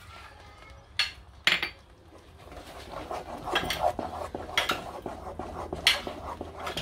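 A wooden spoon stirring thick mashed potatoes in a nonstick frying pan, the spoon knocking against the pan about once a second as it goes. Two sharp knocks come about a second in, before the steady stirring starts.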